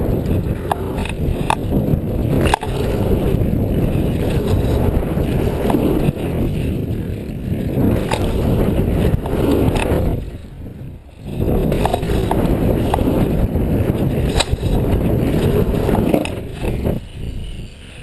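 Mountain bike rolling fast over a packed-dirt jump line, heard through a body-mounted GoPro: a steady rumble of wind on the microphone and tyre noise, with scattered rattles and knocks from the bike. The noise drops away for about a second around the middle, then returns.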